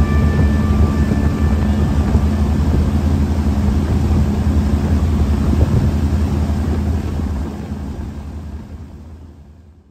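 River speedboat's engine running steadily at speed, with water rushing along the hull; the sound fades out over the last two seconds or so.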